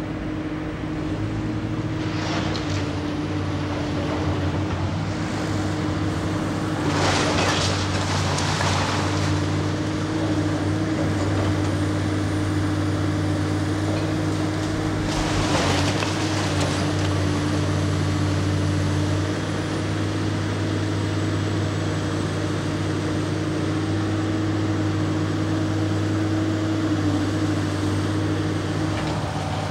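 Kobelco hydraulic excavator's diesel engine running steadily while it tears down a brick building, with crashes of falling masonry and rubble several times, the longest about seven to nine seconds in and another near halfway.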